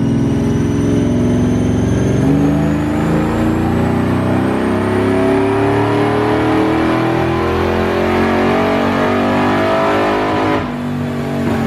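Ford Lightning pickup's V8 on a dyno pull at wide-open throttle, its note climbing steadily as the revs rise, then cutting off sharply near the end as the throttle is released.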